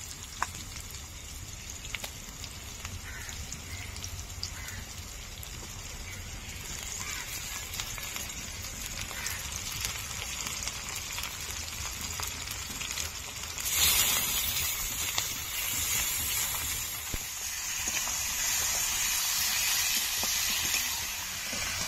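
Mutton pieces frying in hot oil with browned onions in a karahi, a steady sizzle that grows suddenly louder about two-thirds of the way through, with a few light clicks of a spatula against the pan.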